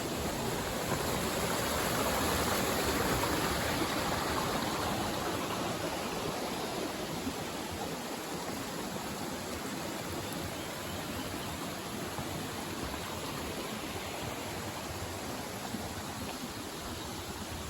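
Steady rush of flowing water from a mountain stream, loudest in the first few seconds and then easing slightly.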